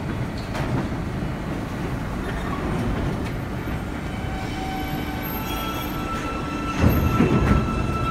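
Budd R32 subway train pulling out of the station: a steady low rumble, with thin steady whining tones joining about halfway through, and the sound growing louder about seven seconds in as the train gets moving.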